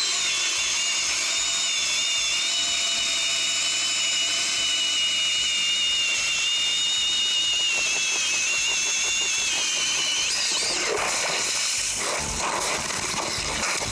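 Power ice auger drilling a hole through lake ice: a steady high whine that sags slightly under load, rises briefly and then stops about ten seconds in. Scattered knocking noise follows.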